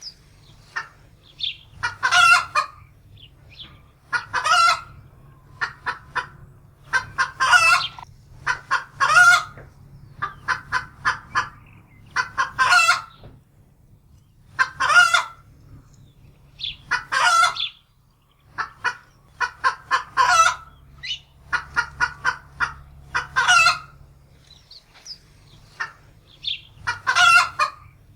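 Domestic hen cackling in alarm: runs of quick, clipped clucks, each run ending in a long, drawn-out squawk, repeated every second or two, the typical alarm cackle of a frightened hen.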